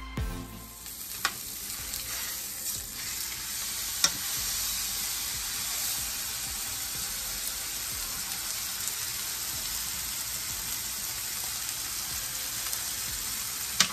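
Swordfish steak sizzling in oil in a nonstick frying pan: a steady hiss, with a few sharp clicks as metal tongs touch the pan and fish.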